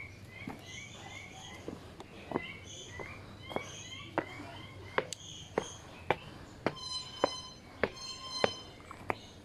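Small birds chirping, short repeated chirps, over a run of sharp clicks about every half second. From about two-thirds of the way in, a harsher, buzzy call comes twice.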